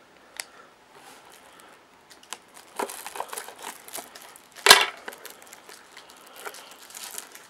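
Shrink-wrapped cardboard trading-card box being handled and tipped on a wooden tabletop: soft crinkles of the plastic wrap and small taps, with one sharp knock a little past halfway through.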